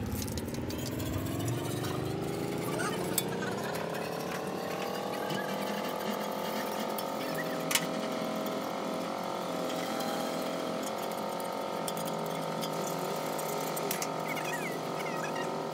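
A motor spinning up: its whine rises in pitch over the first five or six seconds, then runs at a steady pitch. A sharp click sounds about three seconds in, and a louder one near the middle.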